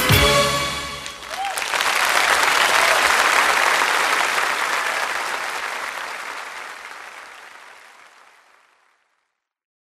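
The music stops and a crowd breaks into applause, which swells and then fades out steadily to silence about nine seconds in.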